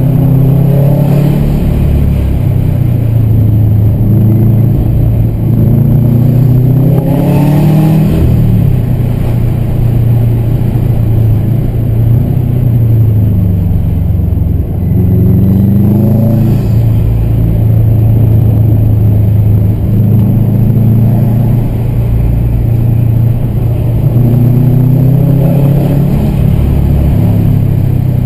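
Subaru's engine heard from inside the cabin, pulling up through the revs several times and dropping back between, with steady cruising stretches in between.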